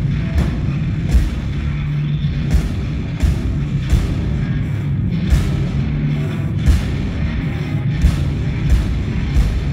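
Live heavy rock band playing loud, slow music: a low sustained guitar and bass drone, with heavy drum hits landing roughly once a second.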